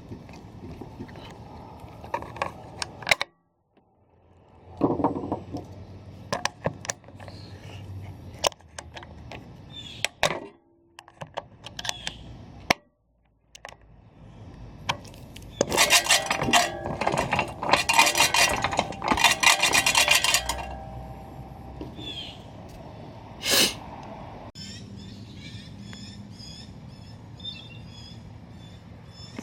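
Metal parts of a Great States hand reel mower clinking, knocking and scraping as it is handled and put back together. Midway there is a few-second run of rapid clicking.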